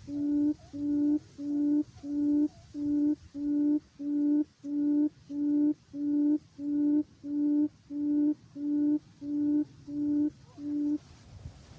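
Low hooting call of a wild buttonquail, as used in quail trapping, repeated evenly about one and a half to two times a second, each note level in pitch. It stops about eleven seconds in.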